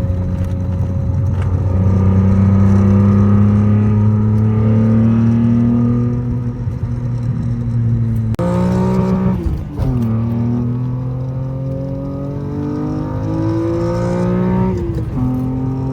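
Euro-spec BMW E36 M3's S50 3.0-litre straight-six, with an aftermarket intake and custom exhaust, heard from inside the cabin while driving. The engine pulls steadily, the revs fall sharply about nine seconds in, then climb slowly and drop again at a gear change near the end.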